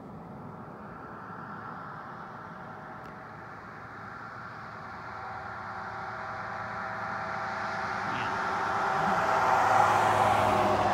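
A car approaching along the road and passing close by, its engine and tyre noise growing steadily louder and peaking near the end.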